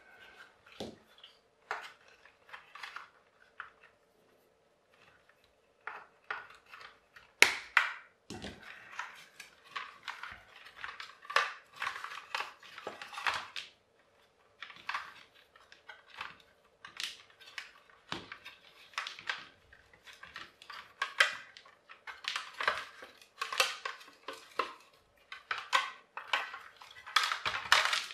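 Plastic housing, wiring and internal parts of a disassembled hand blender being handled: irregular clicks, rattles and clatter of light plastic pieces, with one sharp knock about seven seconds in.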